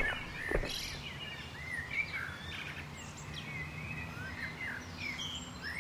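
Songbirds chirping in many short rising and falling calls over a faint steady background hum, with a single footstep about half a second in.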